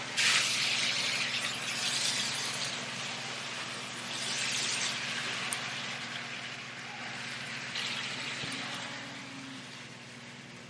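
Diced potatoes, ham and onion sizzling in butter in a nonstick skillet as they are stirred with a spatula, over a steady low hum. The sizzle swells a few times and fades near the end.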